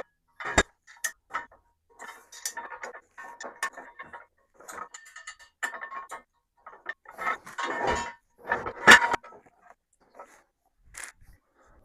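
Allen wrench and bolts clicking and clinking against a metal TV-mount bracket as the bolts are tightened: irregular short runs of metallic clicks, with a louder clank about nine seconds in.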